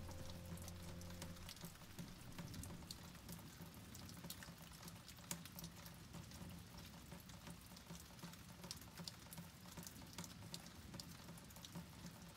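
Faint rain falling, with many irregular drops ticking sharply on hard surfaces. Background music fades out in the first second and a half.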